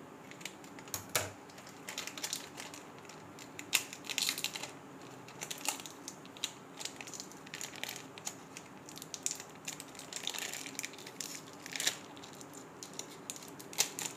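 Foil-lined plastic biscuit wrapper crinkling and crackling in many irregular sharp crackles as it is cut with scissors and peeled off a frozen ice-cream bar.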